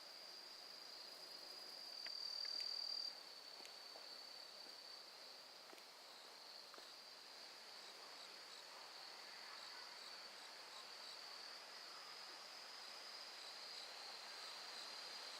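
Crickets or other autumn singing insects: a faint, steady high-pitched trill that swells louder for about a second near the start, with a second insect's faint, evenly pulsed chirping joining in the second half.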